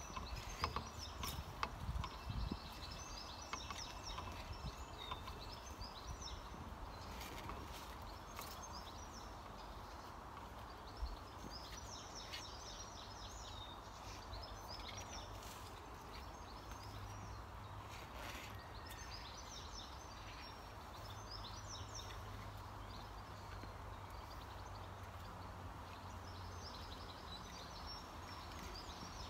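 Small birds chirping and singing on and off over a quiet outdoor background. A hand tool digging into soil knocks a few times in the first couple of seconds and once more about eleven seconds in.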